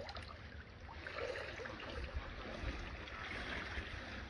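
Swimming-pool water splashing and trickling, a steady, fairly faint wash of water noise.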